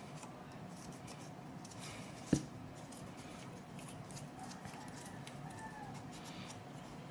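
Faint scratching and rubbing of cotton swabs scrubbing a graphics card's plastic parts, with one sharp knock about two seconds in.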